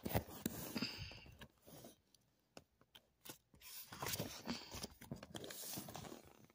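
Paper pages of a comic book rustling and crinkling as they are handled and turned close to the microphone, in two stretches with a short lull of scattered clicks between them.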